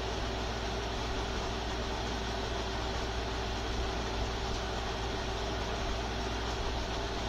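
Steady machine hum with hiss, a low drone and one faint constant tone, like a fan or air-conditioning unit running.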